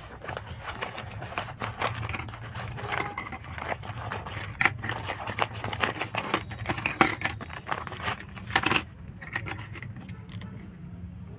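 Clear plastic zip bag crinkling and rustling while small plastic toy cars are taken out of it and clatter onto a wooden tabletop. The crinkling and clicking die down about nine seconds in.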